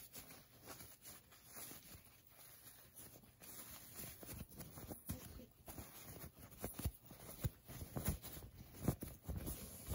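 Cotton fabric rustling and rubbing as hands turn a sewn face mask inside out, with soft, irregular handling knocks close to the microphone that grow busier about halfway through.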